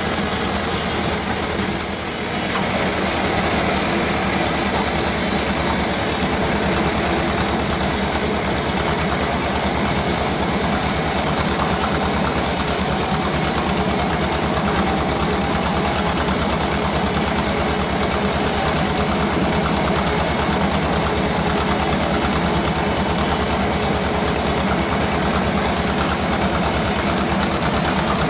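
Band sawmill running and ripping a teak log lengthwise: a steady machine drone with a rapid, even low pulsing under a constant high hiss from the blade. The level dips briefly about two seconds in.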